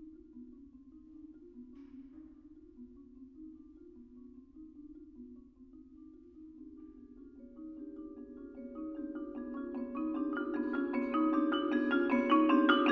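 Marimba playing a soft figure of quickly repeated low notes. From about seven seconds in a held higher note enters, then a growing flurry of ringing vibraphone notes joins and the music gets steadily louder toward the end.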